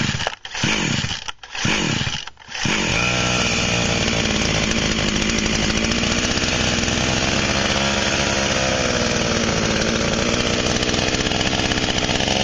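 Chinese GA107J 5200 two-stroke chainsaw being pull-started with its repaired soft-start recoil starter: a few quick cord pulls, then the engine catches about two and a half seconds in and runs steadily. The starter now turns the engine over properly.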